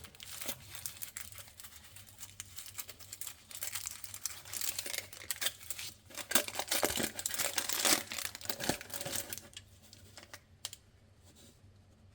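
Chocolate bar wrapper being crinkled and torn open, a dense run of crackling and rustling that is loudest past the middle and thins out to a few light ticks near the end.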